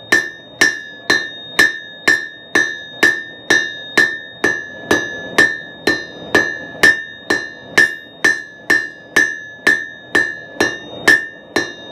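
Hand hammer striking red-hot 3/8-inch square steel bar on the horn of an anvil, an even rhythm of about two blows a second, each leaving a short metallic ring: drawing out a square taper.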